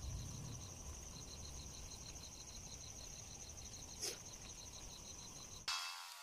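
Insects chirping faintly: a fast, evenly pulsing trill with a steady higher ring above it, and a brief click about four seconds in. Near the end the chirping cuts off abruptly as guitar music starts.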